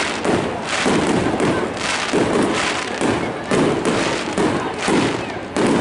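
Aerial fireworks display: shells bursting in a rapid, steady series of bangs, about two a second.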